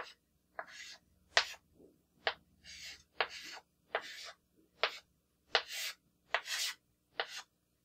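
Chalk writing on a blackboard: about a dozen quick strokes, each a sharp tap followed by a short scratch, as numerals and grid lines of a truth table are chalked in.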